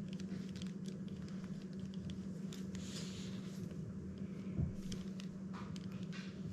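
Small baitcasting reel handled in the hands: faint scattered clicks and rustles, with one soft knock about four and a half seconds in, over a steady low hum.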